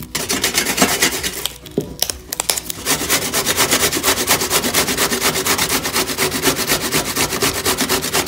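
Zucchini being grated on a stainless steel box grater: a few scattered scrapes at first, then from about three seconds in a fast, even run of scraping strokes.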